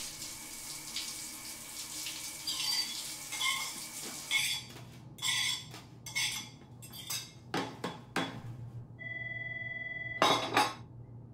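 Water hiss from a shower for the first few seconds, then a fork scraping food off a ceramic plate into a trash bin, with a series of short clinks and scrapes. Near the end a steady beep-like tone lasts about a second, followed by two loud clatters of the plate being set down.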